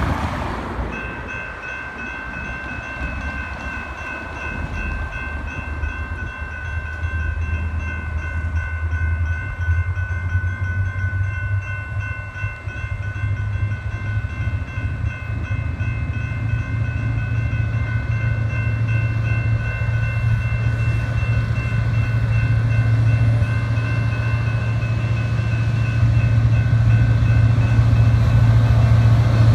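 Grade-crossing warning bells ringing steadily with a fast even pulse, over the low rumble of an approaching freight train's diesel locomotives, which grows louder toward the end.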